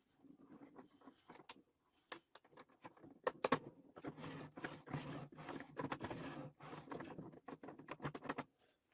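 Irregular light clicks and taps from small objects being handled, with a denser stretch of rustling and scraping from about four to eight seconds in.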